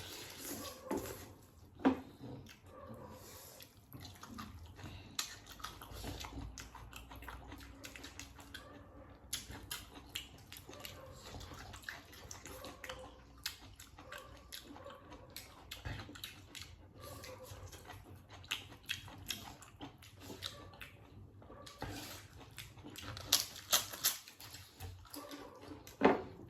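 Chewing and wet mouth sounds of people eating, with many small scattered clicks and clinks from plates and utensils, and a few sharper clinks near the end.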